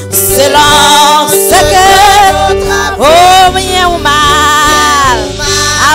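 Women singing a French gospel hymn into microphones over instrumental accompaniment, with long held notes that waver in pitch.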